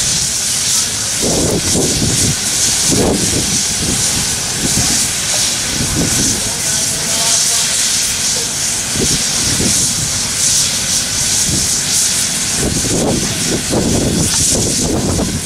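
Steam locomotive, a 1923 Montreal Locomotive Works 0-6-0 switcher (Essex Terminal Railway No. 9), hissing steam steadily while it stands, with uneven low rumbles underneath.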